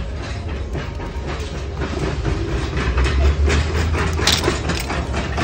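Metal shopping cart rattling with a steady low rumble and many small clicks from the cart and the plastic hangers in it. The rumble swells about three seconds in.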